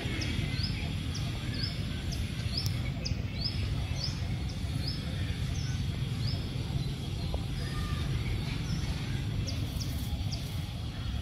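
A small bird chirping over a steady low rumble: short rising chirps, about two a second, thin out after about five seconds, with a few more near the end.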